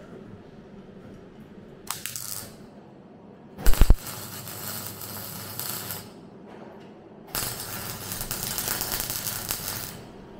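MIG welder arc crackling and hissing on car body steel in three separate welds. A short one comes about two seconds in, a second of about two seconds opens with a few sharp, loud pops, and the longest and loudest runs from about seven seconds in to near the end.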